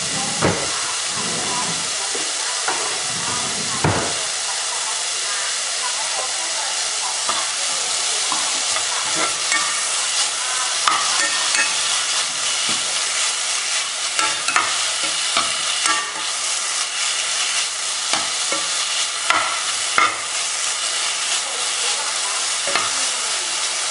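Pork and pounded curry paste sizzling in a pot as they are stir-fried, with a metal spatula-spoon scraping and knocking against the pot at irregular moments. The pork is nearly cooked at this stage.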